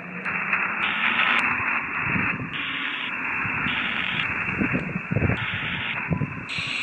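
Spirit box app on a phone sweeping through radio channels: a steady static hiss whose tone changes in steps about every half second, with a few short louder fragments about five seconds in.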